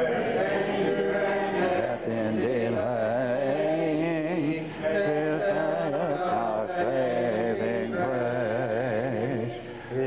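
Congregation singing the invitation hymn together, unaccompanied, several voice parts holding long notes, with a brief break between lines about five seconds in.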